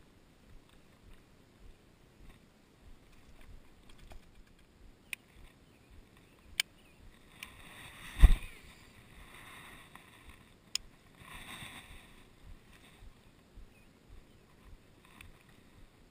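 Fishing rod and reel handled close to a body-worn action camera during a cast: a few sharp clicks, and a loud thump about halfway through as the casting arm swings past, with rustling around it.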